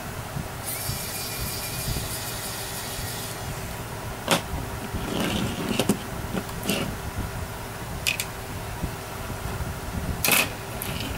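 Scattered small clicks and light knocks of hands working on a small RC helicopter's rotor head as the main rotor blades are taken off, over a steady background hum.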